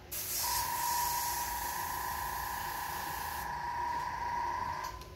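Airbrush spraying paint against a freehand stencil shield: a steady hiss of air with a high, even whistle. The hiss thins about three and a half seconds in, and the sound stops shortly before the end.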